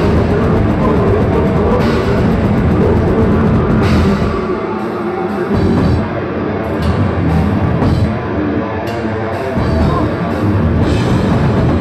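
Technical death metal band playing live: electric guitars, bass guitar and drum kit. In the middle the low end drops away for a few seconds into sharp stop-start hits, then the full band comes back in.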